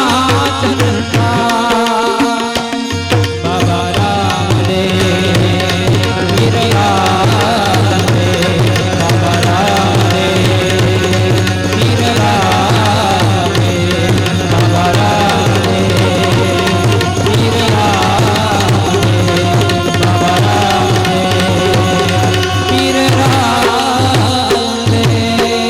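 Indian devotional music: a tabla rhythm under a wavering melody over a steady held drone, playing without a break.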